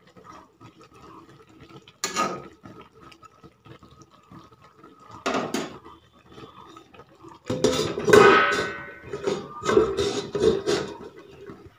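Metal spatula scraping and knocking against a steel kadai while stirring, with a few separate clanks. In the last few seconds a louder run of metal clatter and ringing comes as a steel lid is set on the pan.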